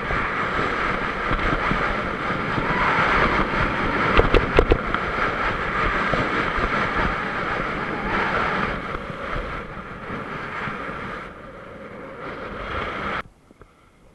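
Alpine skis scraping and hissing over packed snow during a fast run, mixed with wind rushing over the microphone, with a few sharp clacks about four seconds in. The rush eases off as the skier slows and cuts out almost completely near the end as the skis come to a stop.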